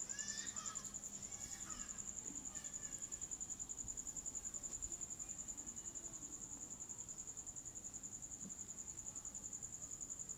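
A cricket chirring: one continuous high, rapidly pulsing trill that never stops.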